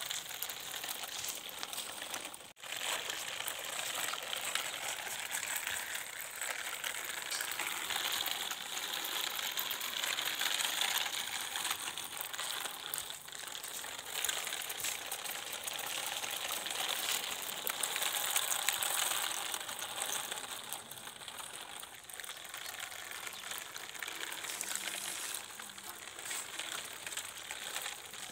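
Homemade cardboard toy truck on bottle-cap wheels rolling over rough concrete: a steady gritty, crackling hiss, broken off for a moment about two and a half seconds in.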